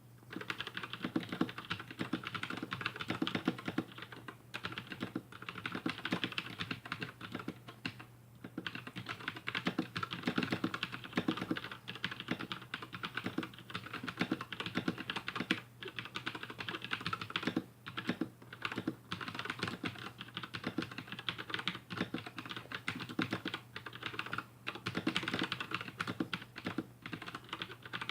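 Continuous typing on a Razer BlackWidow Chroma V2 mechanical keyboard with Razer Yellow linear switches: a dense run of key clicks that breaks off briefly a few times. A steady low hum sits underneath.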